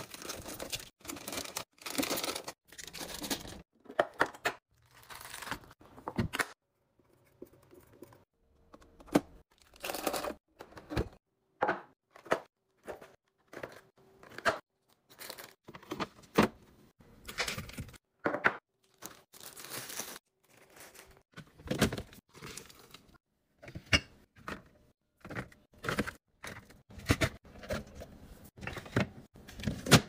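Plastic food packaging crinkling and rustling as it is handled, mixed with sharp clicks and knocks of packages and clear plastic bins being set down on fridge shelves. The sounds come in many short bursts with brief pauses between them.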